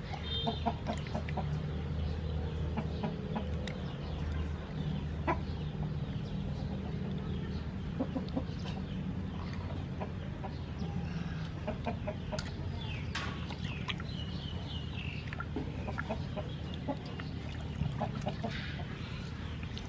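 Chickens clucking on and off, in short scattered calls.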